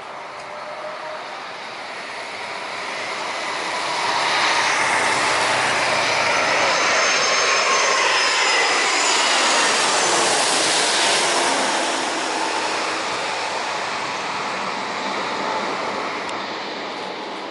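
Aircraft engines as a plane passes low on its landing approach. The roar builds over about four seconds and stays loud for several seconds, with whining tones that drop in pitch as it goes by, then fades.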